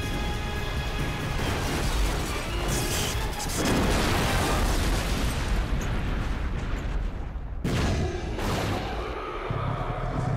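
Soundtrack music with battle sound effects: a long booming blast about three and a half seconds in, and two sharp crashes about eight seconds in.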